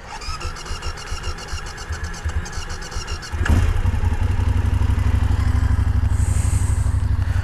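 BMW F750GS parallel-twin engine being cranked on its electric starter for about three seconds before it catches, then settling into a steady idle. It is a little hard to start, and the owner doesn't know why.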